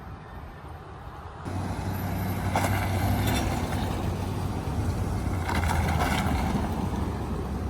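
Diesel pickup truck engine running steadily, coming in suddenly about a second and a half in, with a few brief noisy crackles over it.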